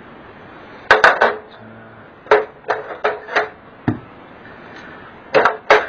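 A long metal LED backlight strip from an edge-lit LED TV tapping and clacking against the TV's metal chassis as it is handled and laid down, about ten sharp taps in small groups.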